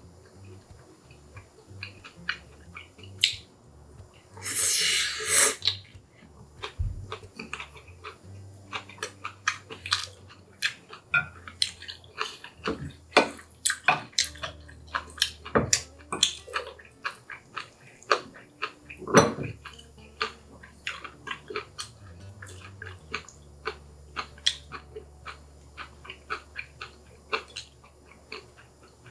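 Close-miked eating sounds: chewing Chapagetti black-bean noodles and green onion kimchi, a dense run of wet smacks and clicks, with one louder rushing burst about four to five seconds in.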